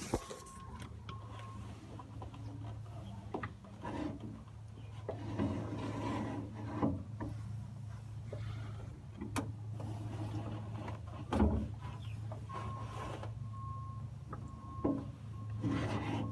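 Scattered rubbing, scraping and a few knocks of hand work on the outboard's steering-cable fitting, over a steady low hum. A repeating high beep, like a reversing alarm, sounds in the first two seconds and again from about three-quarters of the way in.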